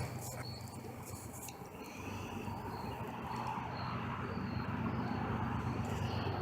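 Crickets chirping in short, evenly repeated pulses, over a steady low hum and a few faint clicks.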